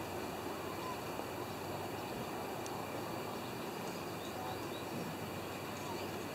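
Steady outdoor background hiss with a few faint bird chirps.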